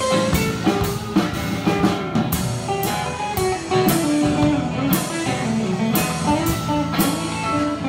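Live band playing bluesy rock: a drum kit keeping a steady beat with cymbal and snare hits about twice a second, under two electric guitars, one picking a moving melody line.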